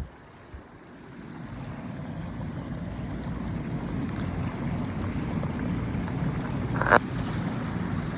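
Low rumble of a canal narrowboat's engine going by, building over the first few seconds and then holding steady. A single sharp click sounds near the end.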